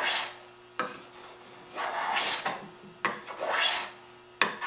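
Shoulder plane taking shavings off a curly maple panel in repeated half-second strokes, each a hissing scrape, with short sharp knocks in between. The plane is cutting cleanly with little tear-out.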